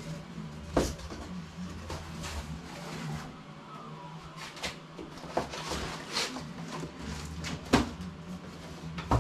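Workbench kit being unpacked from its cardboard box: cardboard and packing material scraping and rustling in short bursts, with two sharp knocks, about a second in and near the end.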